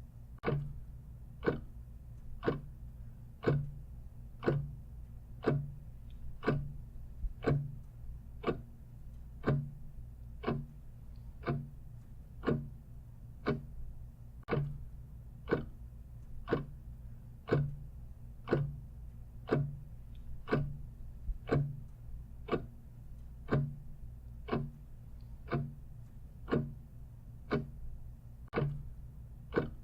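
Clock ticking steadily in an even rhythm, over a low steady hum.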